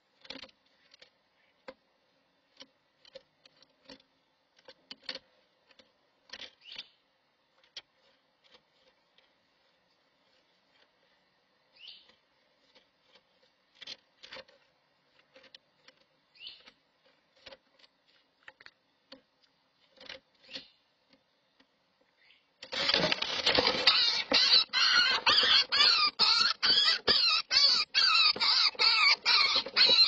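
Wings flapping and claws scrabbling against the wooden nest box as a screech owl on her eggs fights a woodpecker that has come into the box: a sudden loud, dense clatter of rapid clicks and rustling that starts about three quarters of the way through. Before it come scattered light taps and scrapes from the woodpecker at the box entrance.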